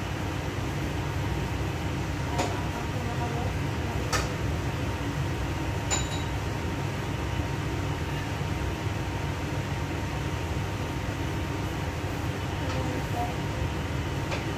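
Steady low rumble of a kitchen range hood extractor fan, with a constant hum. A few light clinks of kitchenware, the last one ringing briefly, about two, four and six seconds in.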